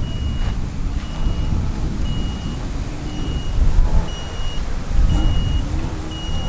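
A crashed mini quadcopter's lost-model alarm beeping from where it is stuck in a tree: one short high beep about every second, steady and even, a locator signal for finding the downed drone. Wind rumbles on the microphone underneath.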